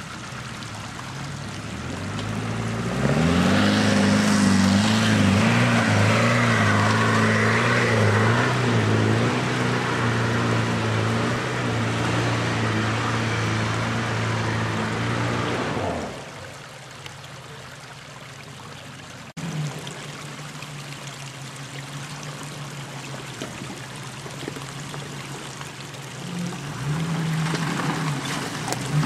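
Off-road 4x4 engine working hard, revving up and down as it climbs, then dropping away abruptly about halfway through. A quieter engine runs after that, rising near the end as a Land Rover Discovery II comes up the track.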